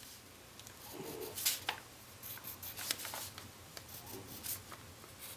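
Origami paper being handled and rubbed by fingers: faint scattered rustles with a few light ticks.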